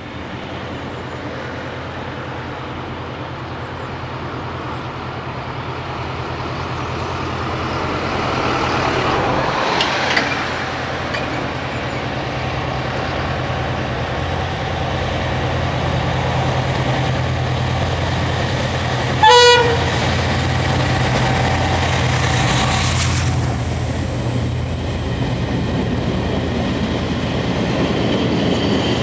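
Irish Rail diesel locomotive hauling Mark II coaches, its engine running steadily and slowly growing louder as it approaches. About two-thirds of the way through it gives one short horn blast, the loudest sound, and near the end the coaches run past close by.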